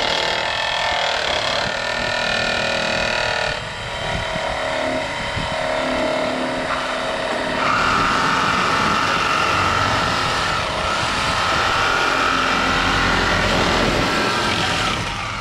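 Corded angle grinder running under load as it cuts through a cracked steel chain sprocket on the conveyor shaft. It makes a steady high whine over a metallic hiss, shifting pitch about three and a half seconds in and again near eight seconds, and stops just before the end.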